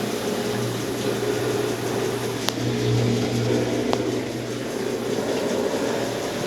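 Consul Facilite CWC10 10 kg top-load washing machine running in its wash stage, a steady motor hum that swells a little partway through, with two faint clicks in the middle.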